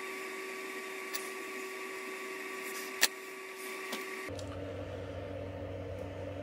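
Light clicks of small parts and tools being handled on a workbench, with one sharp click about three seconds in, over a steady background hum. The hum changes abruptly to a lower one just after four seconds.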